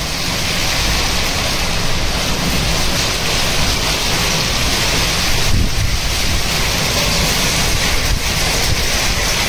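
Heavy hail and rain pelting a concrete rooftop, a dense, steady hiss, with wind rumbling on the microphone.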